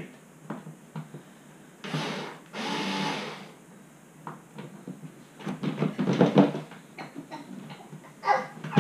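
Plastic parts of a children's ride-on toy car being handled and fitted together: scattered knocks, clicks and rustles, with a denser run of clicks about six seconds in.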